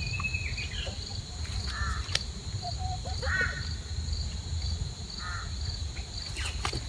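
Outdoor ambience: insects chirring in a steady, evenly pulsing drone, with a bird calling three times, a sharp click a little after two seconds, and a low rumble underneath.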